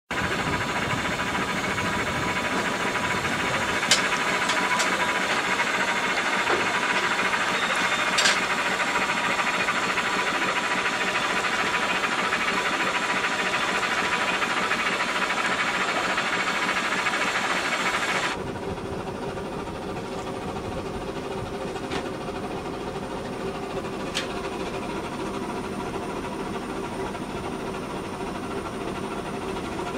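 The 1859 steam yacht Gondola under way: a steady noisy running sound with a faint steady tone and two sharp clicks. After a cut about 18 seconds in, it drops to a quieter steady running sound with a lower hum.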